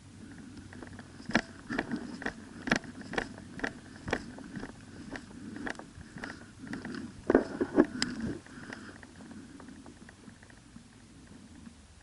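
Footsteps crunching on dry leaves and twigs, an irregular run of sharp crackles about half a second apart, with a denser cluster about three-quarters of the way through before they fade out.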